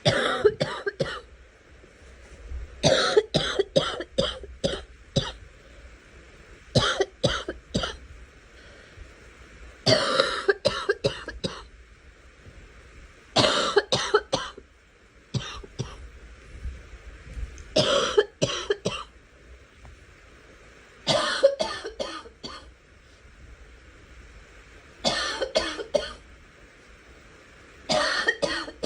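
A girl coughing in repeated fits: about nine bouts, each a quick run of several sharp coughs, with pauses of a couple of seconds between them.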